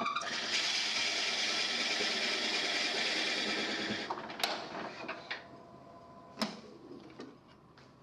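A large drill bit boring deeper into a green-wood birdhouse blank turning on a lathe: a steady rasping cut that stops about four seconds in, followed by two sharp clicks.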